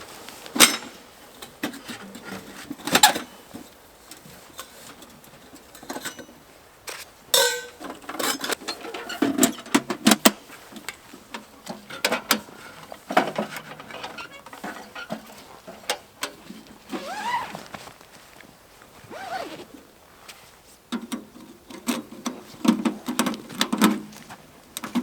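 Irregular knocks, clicks and clatter of objects being handled, with a couple of short squeaky glides.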